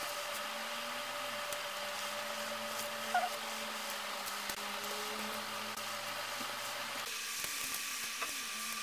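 Steady background hum of room or appliance noise, with a few faint clicks and taps of Lego bricks being picked up and handled. Part of the hum drops out about seven seconds in.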